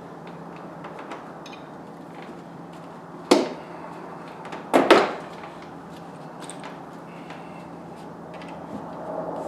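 Cold air intake parts being handled and fitted: one sharp knock about three seconds in and a quick double knock about two seconds later, with light clicks over a steady low hum.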